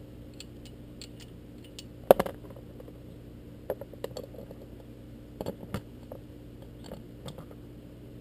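Scattered light clicks and knocks of metal against an oil drain pan as a hand fishes the dropped oil drain bolt out of the hot oil, the sharpest about two seconds in.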